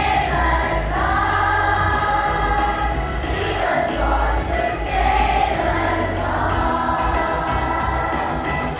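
A choir singing to music, with sung notes held and gliding over a steady low bass.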